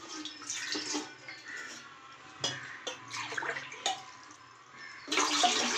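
Water poured into a large cooking pot, with a few clinks of metal vessels in between; a louder pour starts about five seconds in.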